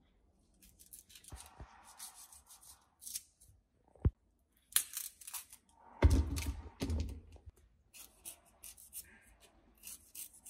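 Kitchen knife scraping and cutting lemongrass stalks and fresh ginger root: short scratchy strokes, with a sharp click about four seconds in and a heavier thump about six seconds in.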